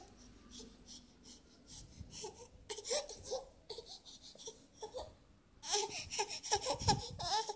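A baby babbling in short sounds that rise and fall in pitch, growing louder about six seconds in, with bedding rustling as the baby moves.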